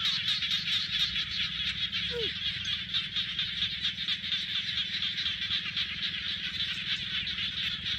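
A steady, dense chorus of small animals calling, high and buzzing with rapid pulsing, over a low rumble. A single short falling whistle sounds about two seconds in.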